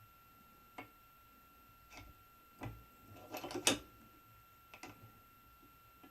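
Light clicks and taps of small tools and parts being handled on a bench, a few single ones and a quick cluster about three and a half seconds in, which is the loudest.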